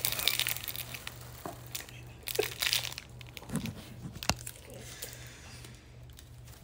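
Clear plastic wrapper on a small advent-calendar candy crinkling as it is unwrapped and handled, in short scattered bursts, with one sharp click a little past four seconds in.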